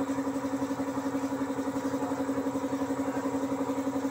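Ford Everest engine idling steadily on a test run, just reassembled with its cylinder head replaced; a steady hum with an even, fast pulsing beat.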